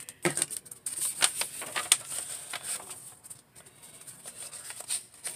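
Sheets of patterned paper and card rustling, sliding and tapping as they are handled and set down on a tabletop: an irregular string of soft clicks and rustles.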